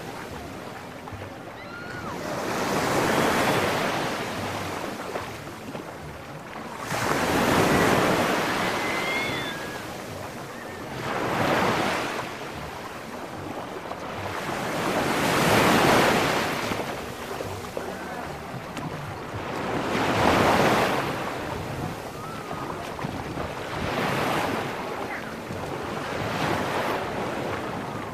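Small waves breaking and washing up on a sandy beach, the surf swelling and fading about every four seconds.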